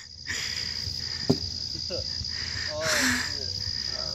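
Crickets trilling steadily in one unbroken high-pitched tone. A person's voice calls out briefly about three seconds in.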